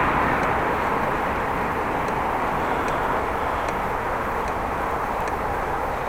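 Bicycle riding along with steady wind and tyre rumble, and a faint sharp tick repeating a little more than once a second: the ticking the rider hears in the bike and cannot find the cause of.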